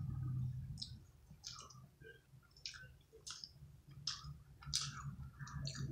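A person chewing fried chicken, with wet mouth clicks and smacks coming irregularly about every half second over a faint steady low hum.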